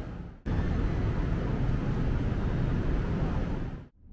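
Steady road-traffic noise with a low rumble, cut off briefly about half a second in and fading out near the end.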